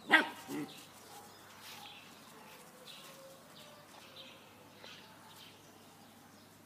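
Small white puppy barking twice at the start, a sharp loud bark followed by a lower, quieter one.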